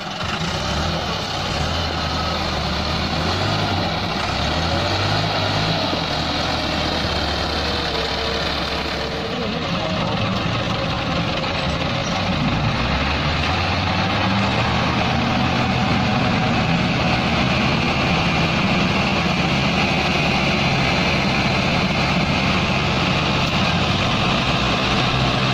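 Diesel tractor engines, a Massey Ferguson 375 and a Belarus 510, running hard under load as they pull a combine harvester stuck in mud. The engine note rises and falls several times as they are revved.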